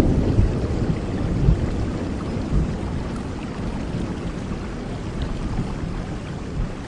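Steady rain falling, with the tail of a thunder roll rumbling low at first and fading away over the first few seconds.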